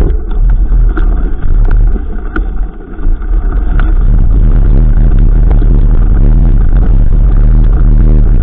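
Heavy wind rumble on the microphone while riding a mountain bike, with sharp knocks and rattles from the bike during the first four seconds, then a steadier roar.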